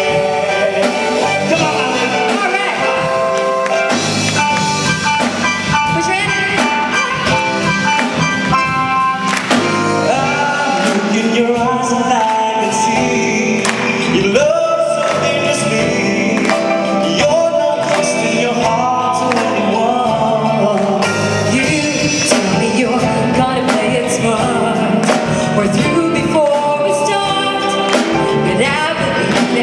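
Live band playing a song with a singer's voice over the instruments, part of a medley of English duets.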